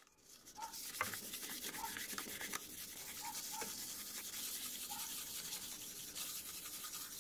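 Sandpaper rubbed by hand back and forth over a varnished wooden bench leg, a steady rapid scratching: sanding down the finish between coats of polyurethane varnish.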